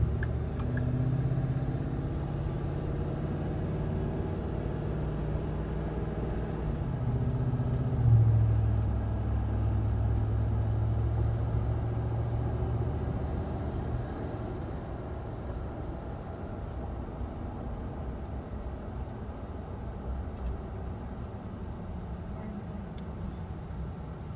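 Car engine and road noise heard from inside the cabin while driving: a steady low hum whose pitch shifts a few times. It swells about eight seconds in, then eases off after about fourteen seconds and stays quieter.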